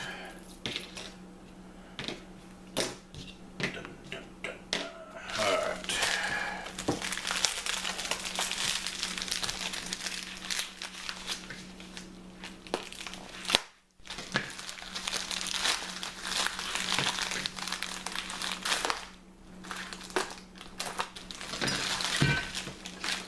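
Packing wrap crinkling and crumpling as it is pulled off small parts by hand, with scattered small clicks and knocks. The sound breaks off for a moment about halfway through.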